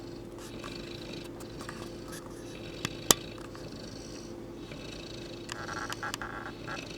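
Saint Bernard puppy snoring in its sleep, a slow run of breaths rising and falling every second or two, with one sharp click about three seconds in.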